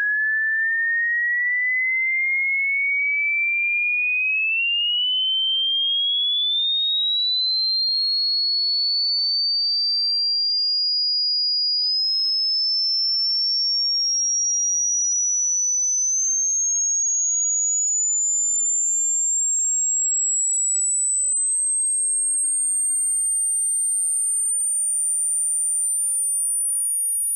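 Hearing-test frequency sweep: one pure electronic sine tone at steady loudness, climbing slowly in pitch from a mid whistle to a very high, thin whine. It is used to find the highest pitch a listener can still hear.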